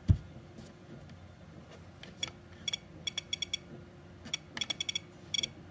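A dull thump as a hand meets the ToolkitRC P200 power supply, then bursts of quick, sharp clicks as its voltage-adjust knob is turned step by step.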